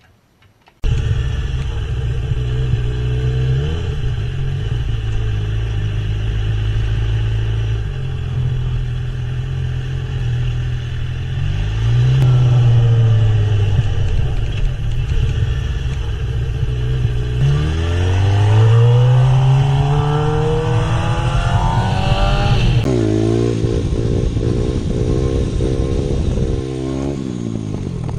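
Motorcycle engine running hard, starting abruptly about a second in. Its pitch climbs under acceleration and drops back at gear changes, with a long rising pull about two-thirds of the way through and short quick rises and drops near the end.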